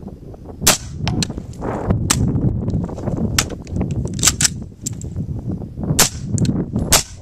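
Suppressed 5.56 mm rifle going through a misfire drill: a failure to fire is cleared by tapping the magazine and racking the action, with metallic clacks, then the rifle fires again. Several short, sharp cracks and clacks come at uneven intervals over a low rumble.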